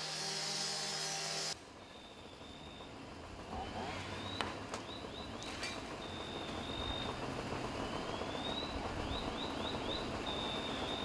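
A gas-powered rotary cut-off saw runs at full speed cutting metal, throwing sparks, and breaks off abruptly about a second and a half in. After that comes a low steady engine rumble, with a high chirping pattern of rising and held tones repeating every few seconds and a couple of sharp knocks.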